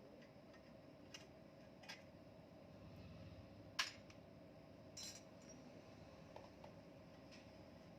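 Near silence with a few light metal clinks, one a little louder about four seconds in, from small engine parts and hand tools being handled during assembly.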